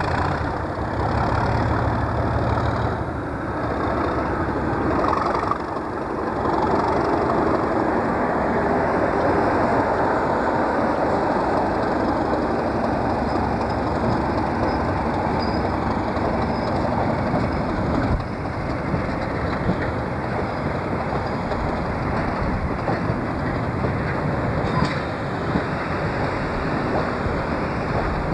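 Class 37 diesel locomotive's English Electric V12 engine working under power as it pulls a loco-hauled passenger train away, followed by the coaches rolling past on the rails.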